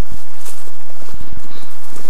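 Footsteps and scuffing through dense undergrowth: an irregular run of dull knocks, several in quick succession about a second in, over a steady hiss.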